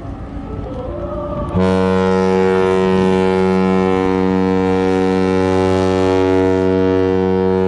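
Ship's horn sounding one long, steady blast that starts suddenly about a second and a half in: a deep tone with many overtones, held for several seconds.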